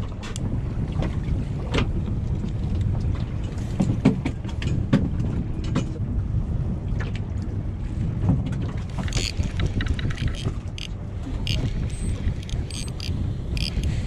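Steady low rumble of wind and the boat on open sea, with scattered clicks and a run of sharper ticks in the second half as a baitcasting reel and rod are handled.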